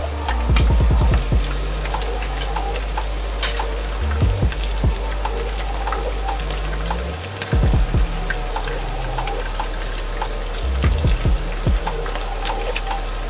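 Food frying in a hot pan with a steady sizzle. A spatula clatters against the pan in short spells of stirring, about a second in, around the middle and again near the end. Background music with a steady bass line plays underneath.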